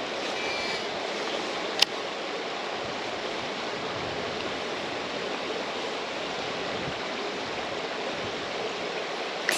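Steady rushing noise of strong wind outdoors, with a single sharp click a little under two seconds in.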